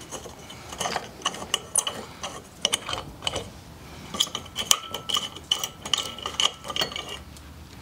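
Metal clicking and grating as the clamp screw of an old hand-cranked corn grinder is turned out to take the grinder off the table. Scattered clicks at first, then a fast run of clicks with a thin squeaky ring from about four seconds in to near the end.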